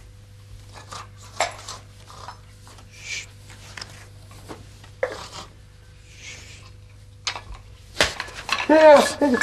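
Small household objects clinking and knocking lightly as they are rummaged through, with soft hissing sounds about every three seconds. Near the end comes a loud knock and clatter, and a voice cries out.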